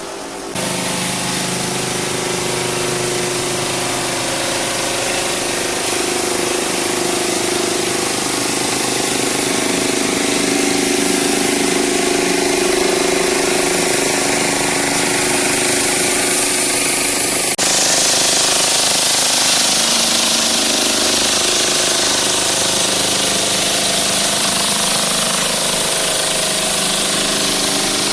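Drum floor sander running and sanding a polyurethane-coated hardwood floor: a steady motor tone under a loud, gritty hiss, starting abruptly just after the beginning.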